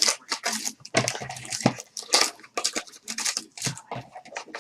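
Plastic wrapping on a trading-card box and packs crinkling and tearing as it is opened by hand, in quick irregular crackles.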